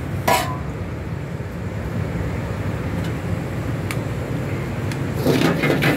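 Steady low roar of a commercial kitchen's gas wok burners, with a sharp metal clink about a third of a second in and a clatter of metal utensils against a wok near the end.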